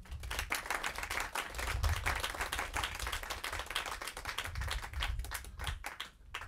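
Audience applause: many people clapping together, thinning out near the end to a few last claps.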